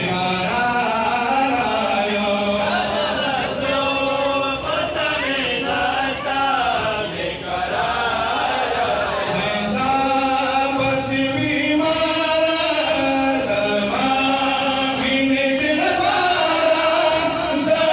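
Men's voices chanting a Pashto noha, a mourning lament, in long sung phrases that rise and fall.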